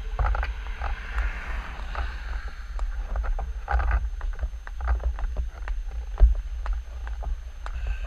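Low rumble with scattered clicks and rattles from a bicycle rolling slowly over cobblestone paving.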